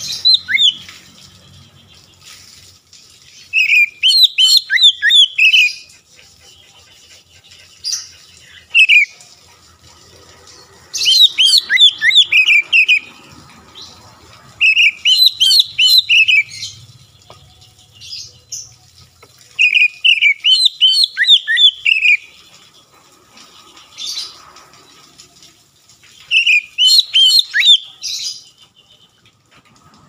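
Oriental magpie-robin (kacer) in full song: loud phrases of rapid, sweeping whistled notes, each lasting one to two seconds, repeated about seven times with pauses of a few seconds between them.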